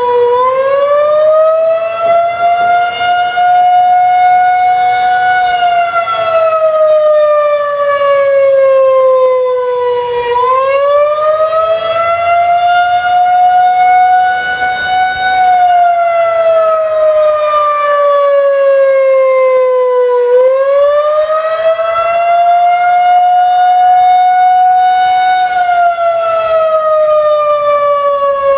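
Federal Signal 2001-130 rotating mechanical warning siren sounding a slow wail: the tone winds up quickly, holds high for about five seconds, then winds down slowly, repeating about every ten seconds, three rises in all. This slow up-and-down wail is the attack signal of the test.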